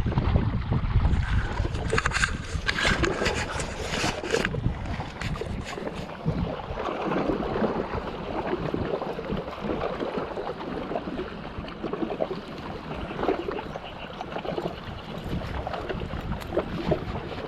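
Wind on the microphone and moving water at a river mouth. The wind rumbles strongly in the first second or two, and a burst of crackling handling or splashing noise comes between about two and four seconds in.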